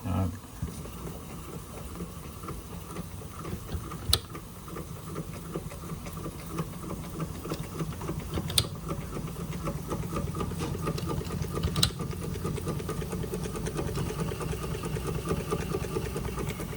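Doll 387/3 toy steam engine running steadily and driving a Fleischmann blacksmith toy, a fast, even mechanical chatter. Three sharp clicks come a few seconds apart.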